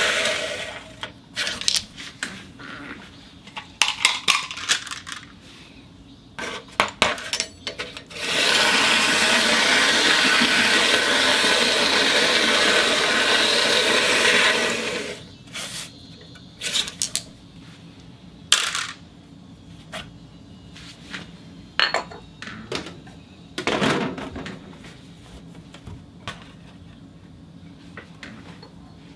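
Glass marbles rolling and clicking against one another on a turntable: a string of sharp clicks and clinks, then a steady rolling rush for about six seconds, then scattered clicks again.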